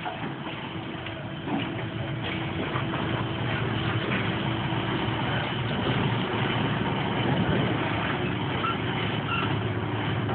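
A large engine running steadily, growing louder about a second and a half in.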